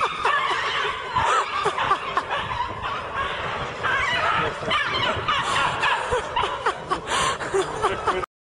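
People laughing and snickering, with short bursts of laughter one after another. The sound cuts off abruptly near the end.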